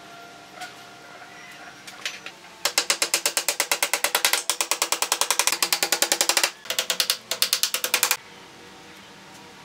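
Hammer tapping nails through a wooden ridge board into a bamboo coop roof frame: a fast, even run of ringing taps starting about two and a half seconds in, a brief break, then a second run that stops about a second and a half before the end.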